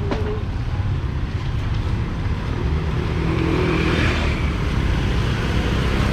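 Street traffic noise: a steady rumble of passing vehicles, with one vehicle swelling up close and passing about four seconds in.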